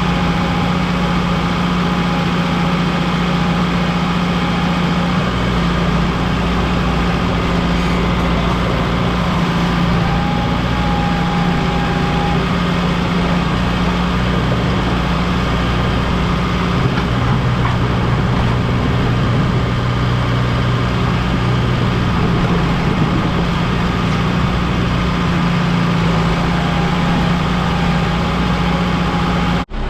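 Kubota M6060 tractor's four-cylinder diesel engine running steadily, its note shifting a little in the middle; the sound breaks off abruptly near the end.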